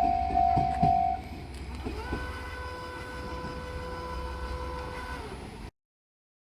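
Japanese level-crossing alarm bell ringing in quick repeated dings, about two a second, which stops about a second in. About two seconds in, a diesel railcar's horn sounds one steady note for about three seconds over a low engine rumble. The sound then cuts off abruptly.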